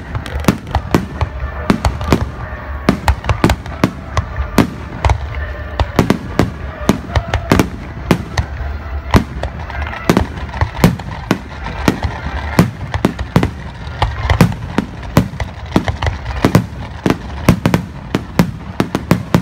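Aerial firework shells bursting in quick, irregular succession, two or three sharp bangs a second, over a steady low rumble.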